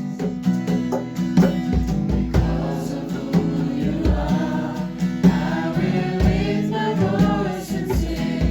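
Gospel-style music: a choir singing over sustained chords with a steady beat of about one bass-drum hit a second, the voices coming forward about four seconds in.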